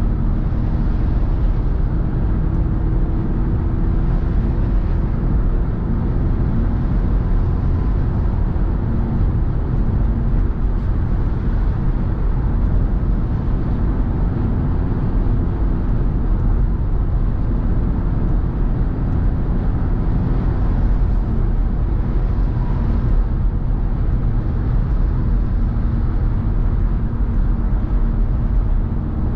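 A car driving steadily at motorway speed: an even rumble of tyre and road noise, with a low steady hum underneath.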